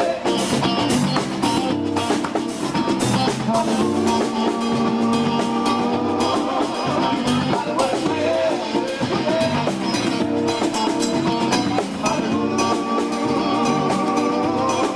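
Live band playing, with drum kit and electric guitar, a steady beat and sustained held notes.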